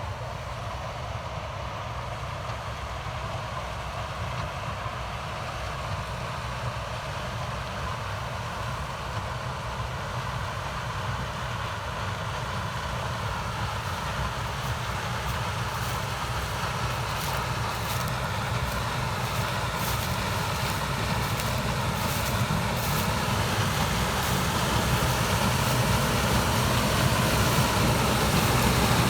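Steady drone of running farm machinery, an engine-like hum with a noisy hiss over it, growing gradually louder throughout.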